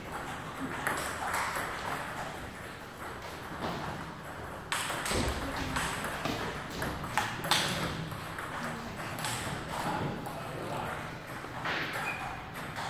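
Table tennis balls being struck by paddles and bouncing on tables: quick, irregular sharp clicks from rallies, the loudest about seven and a half seconds in.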